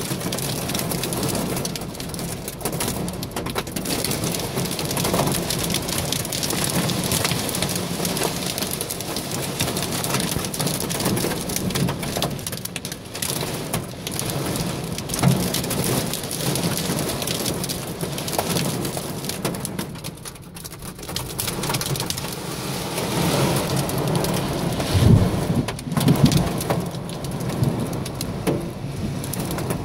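Torrential rain mixed with hail from a supercell thunderstorm, pelting the road and the car in a dense, steady hiss. Near the end come a couple of louder low thumps.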